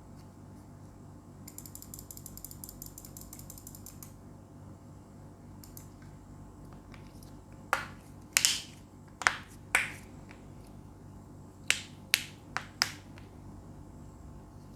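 Keys on a Royal Kludge RK860 mechanical keyboard with lubed RK (Huano) brown tactile switches. Starting a couple of seconds in, a fast, even run of faint ticks lasts about two seconds. Then, from about halfway on, keys are pressed one at a time, giving about nine sharp, separate clacks.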